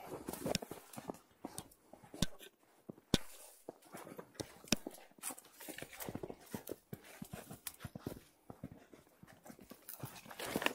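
Footsteps crunching through snow, about one or two uneven steps a second, with dry reed stalks rustling as they are walked through.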